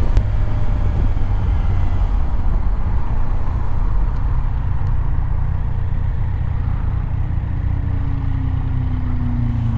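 Riding a Yamaha MT-09, with its inline-three engine running steadily under heavy wind rush on the microphone. Near the end the engine note drops in pitch as it slows.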